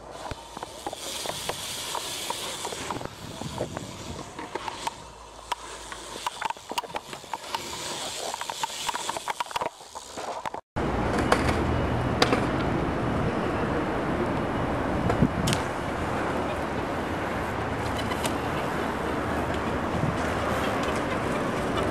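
BMX bikes riding in a concrete skatepark: tyres rolling and scraping on concrete, with scattered clicks and knocks. About halfway through, the sound cuts out for a moment and a louder, steady rushing noise takes over, with a few sharp ticks.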